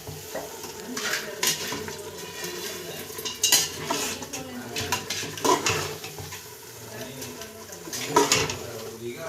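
A spoon scraping and clinking against a cooking pot at irregular intervals as chicken is stirred in masala paste, with light sizzling from the pot underneath.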